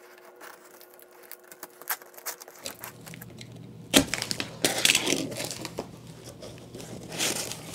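Cardboard shipping box being opened: light scattered clicks and scrapes, then a sharp crack about four seconds in, followed by a stretch of crackling and crinkling as the flaps and packing are pulled open.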